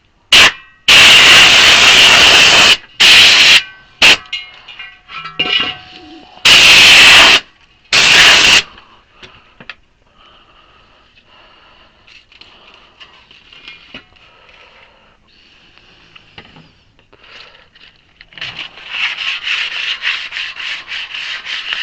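Six blasts of air from a blower blowing dust off a wheel rim, each starting and stopping abruptly, the longest lasting nearly two seconds. Quieter scattered sounds follow, and near the end comes a louder, fast, rhythmic rasping.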